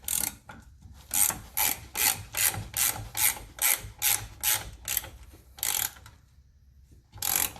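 Ratchet wrench clicking in short strokes, about two to three a second, tightening the nut on a shock absorber mount that is nearly fully tight. The strokes pause near the end, with one last stroke just before it ends.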